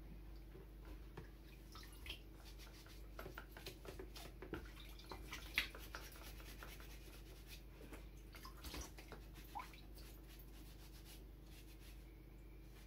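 Faint scattered clicks, drips and rubbing from an aquarium filter unit and its foam sponge being handled and rinsed over a bucket of water.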